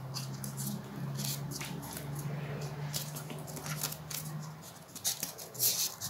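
Small scissors snipping a slit into folded paper, with paper rustling: scattered sharp snips and rustles, the loudest near the end. A low steady hum runs underneath for the first four seconds or so.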